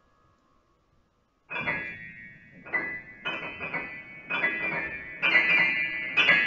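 Acoustic grand piano: after about a second and a half of near silence, high chords are struck every half second to a second, growing louder toward the end.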